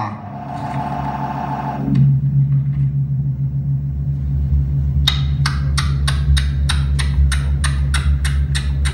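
Electronic music from modular synthesizers: a steady low bass drone, with a mid-pitched tone that stops about two seconds in. About five seconds in, a sharp, clicking percussion pattern starts, at roughly three hits a second.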